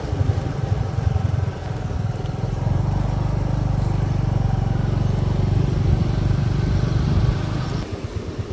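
A motor vehicle's engine running steadily as it drives along, heard from on board as a low drone. The drone eases off about seven and a half seconds in.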